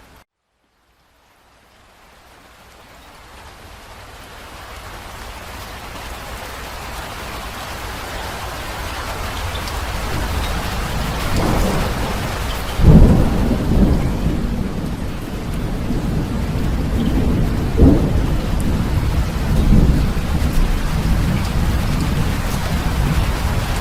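Heavy rain falling steadily, rising from silence and growing louder over several seconds. Rolling thunder comes in about halfway through, with the loudest clap a little past the middle and further deep rumbles after it.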